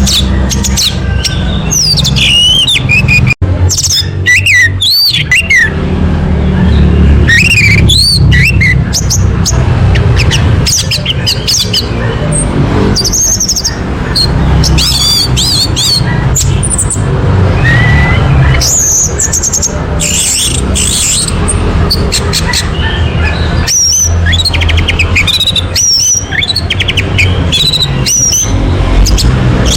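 Orange-headed thrush singing a fast, varied run of whistled and warbled phrases, with a steady low hum underneath.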